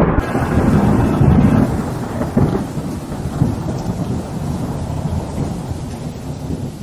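Thunderstorm sound effect: rolling thunder over steady heavy rain. It is loudest at the start and slowly dies away.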